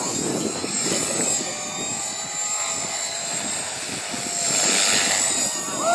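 450-class RC helicopter flying aerobatics: a steady high whine from the motor and drivetrain over the whoosh of the rotor blades, swelling louder about four and a half seconds in.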